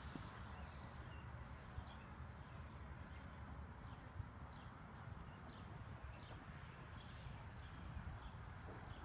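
Faint hoofbeats of a horse cantering on arena sand, over a steady low rumble, with short high bird chirps scattered throughout.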